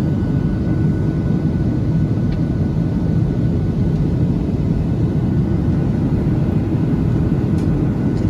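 Steady low rumble of a passenger airliner heard from inside the cabin: engine and airflow noise, with a faint steady whine above it.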